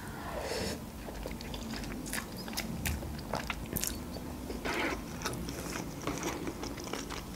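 Close-miked eating of instant noodles: a short slurp as a forkful goes in at the start, then chewing with many small wet mouth clicks.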